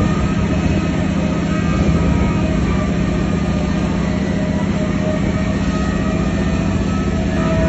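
A 1200 hp SCR drilling rig's machinery running on the rig floor: a loud, steady drone with constant whining tones over it.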